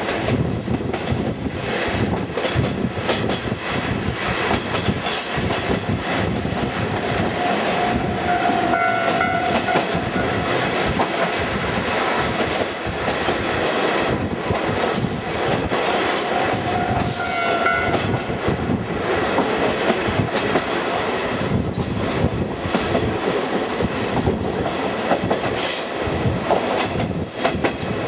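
KiHa 48 diesel railcar running at speed, heard from its open-windowed trolley car: steady wheel and rail clatter with wind rush. A short horn blast sounds twice, about nine seconds in and again just past halfway.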